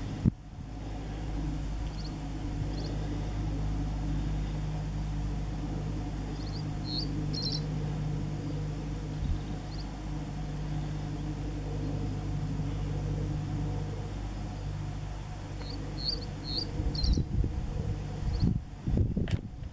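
Male reed bunting singing short phrases of a few high, quick chirps, twice, faint under a steady low hum. Irregular low bumps near the end.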